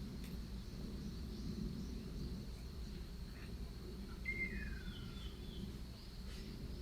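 Outdoor ambience: a steady low background rumble with a thin, steady high insect tone, and a single bird's falling whistled call about four seconds in, followed by a few faint short chirps.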